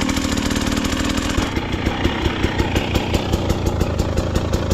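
Off-road vehicle's engine running with an even pulsing beat; a steady hum rides over it for the first second and a half, then stops.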